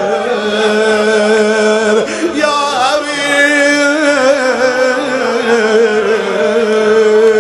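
A male reciter chanting a Shia lament, holding long wavering notes in a melismatic line over a steady low drone.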